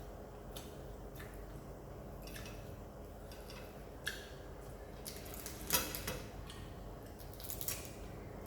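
Close-miked eating of crunchy deep-fried fish: scattered mouth clicks and crunches while chewing, busiest a little past the middle.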